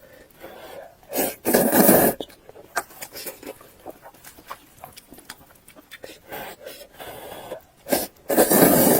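Close-miked eating sounds: soft chewing and mouth clicks, broken twice by a loud rushing mouth noise about a second long, once near the start and again at the end.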